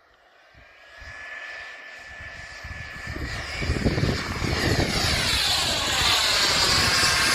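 Turbine-powered RC model jet approaching in flight: a high steady whine and a broad rush grow steadily louder from faint to loud, the whine edging up in pitch about halfway through.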